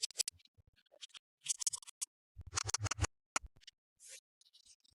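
Toy packaging being handled and opened: short scratchy rustles and crinkles in irregular bursts, with a soft knock among them about two and a half seconds in.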